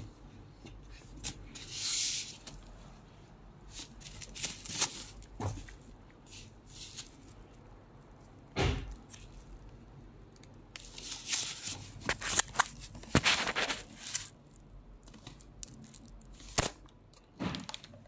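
Tissue paper stuffing rustling and crinkling in irregular bursts as a leather and suede handbag is handled and opened, with a few sharp clicks and taps from the handling.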